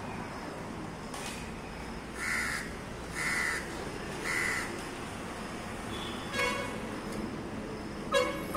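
A crow cawing three times, about a second apart, over a steady outdoor hiss. A louder, brief pitched sound follows near the end.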